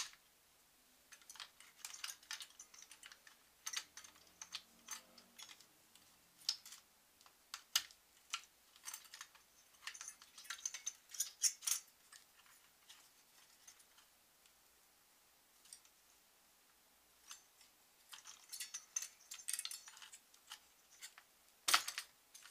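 Scattered light clicks and rattles of plastic and metal as the stock AMD heatsink-and-fan's retention clip is unlatched and the cooler is worked loose from the motherboard. The clicks pause for a few seconds in the middle, and a sharper click comes near the end.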